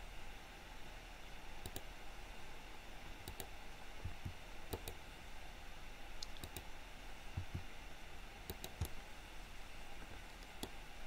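Computer mouse clicks and key taps, a single click or a quick pair every second or two, over a faint steady hum.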